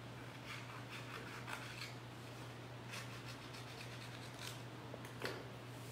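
Scissors cutting black paper: several faint, irregularly spaced snips.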